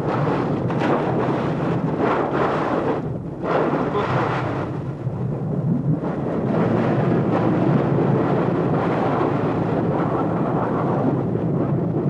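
Wind buffeting the microphone on a boat's deck, over a steady low hum from the boat and the choppy sea. The wind eases briefly about three seconds in.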